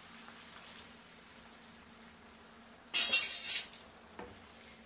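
Pasta cooking water hitting a hot pan of frying diced potatoes, salame and soffritto: a faint sizzle, then a loud sizzling hiss for under a second about three seconds in as the water goes in. A wooden spoon stirring gives a small knock just after.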